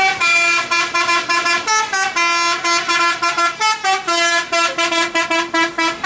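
Tour bus's Basuri telolet horn playing a fast multi-note tune: short notes changing several times a second, with a few held a little longer.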